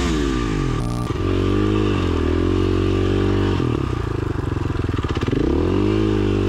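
Dual-sport motorcycle engine running under changing throttle on a dirt trail, its pitch dropping and climbing again several times as the rider rolls off and back on the gas.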